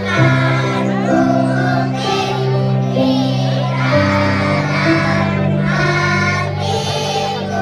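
A children's song: a child's singing voice over backing music with steady held bass notes.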